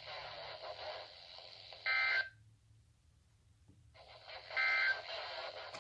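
Weather-radio receiver hiss broken by two short bursts of warbling digital data tones, the EAS/SAME code sent before or after an alert, about two and a half seconds apart. The signal drops out to near silence for over a second between them.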